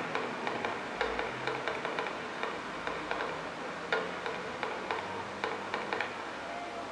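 Aerial fireworks popping and crackling in a quick irregular run of sharp reports, with a sharper bang about four seconds in.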